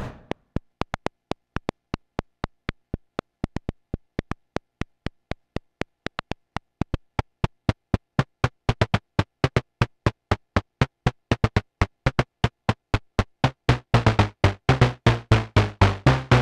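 Moog Subsequent 25 analog synthesizer playing its 'Brazz' patch from a sequencer: short staccato notes at about three to four a second that grow longer and brighter, turning into denser, held notes over a strong low bass line about two seconds before the end.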